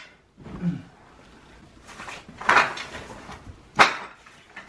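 Camping gear being handled: a rustle of bag fabric about two and a half seconds in, then a single sharp knock just before four seconds as gear is set down.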